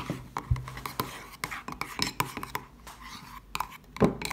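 Metal spoon clinking and scraping against a ceramic mug while stirring runny slime: irregular light clicks, the sharpest about four seconds in.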